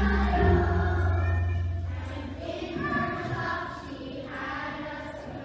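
Children's choir singing, high voices sliding in pitch, over a low bass note that fades out about two seconds in.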